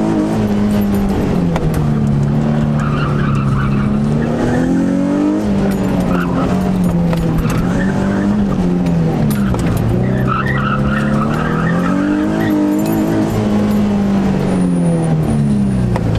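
Nissan 350Z's 3.5-litre V6, heard from inside the cabin, revving up and down again and again as the car is driven hard through an autocross course. The tyres squeal briefly a couple of times in the corners.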